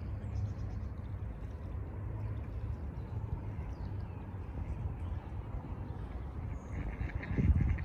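Steady low outdoor rumble with faint high bird chirps; about seven seconds in, a duck starts quacking in quick pulses, with a low thump just before the end.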